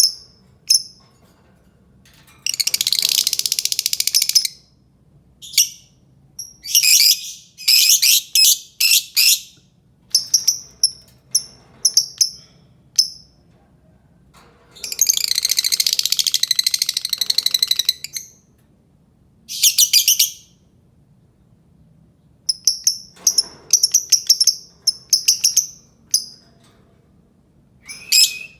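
Albino lovebird calling: short, sharp, high chirps, broken twice by long bursts of rapid chattering lasting two to three seconds each.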